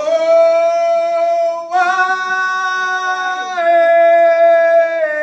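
Women singing a long held note in unison, with a second part an octave lower, starting suddenly; the pitch steps up about two seconds in, back down about three and a half seconds in and a little lower near the end.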